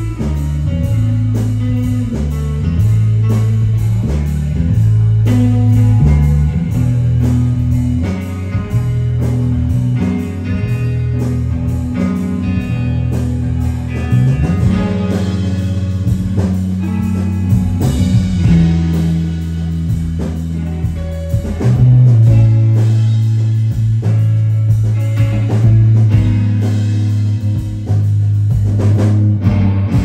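Live rock band playing an instrumental passage: electric guitars over a drum kit, with a low line of held notes underneath.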